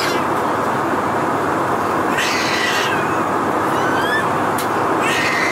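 Steady cabin noise of an Airbus A320 in flight, with a baby crying in short wails: one about two seconds in and another starting near the end.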